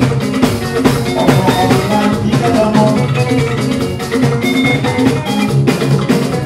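Live band music with electric guitars and drums playing a steady beat.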